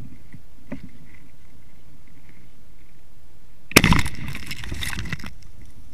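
One shotgun blast about three and three-quarter seconds in, heard from a camera mounted on the gun itself: a sudden sharp report that rings off over about a second and a half.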